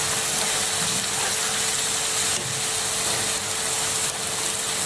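Masala gravy with fried king fish slices sizzling steadily in a frying pan on the stove, with a steady low hum underneath.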